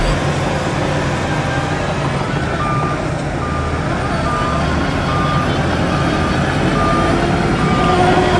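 Heavy earthmoving machine's diesel engine running, with its reversing alarm starting about two and a half seconds in and beeping steadily at a single pitch a little more than once a second.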